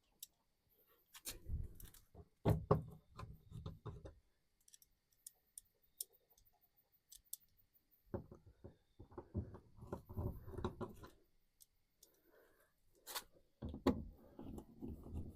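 Light clicks, knocks and metal clatter in three short bunches, as bolts are handled and started by hand into a car door's inner panel.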